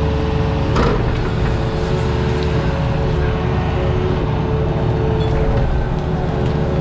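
Diesel engine of a compact earthmoving machine running steadily, with a steady hydraulic whine over the low engine rumble. There is one short knock about a second in.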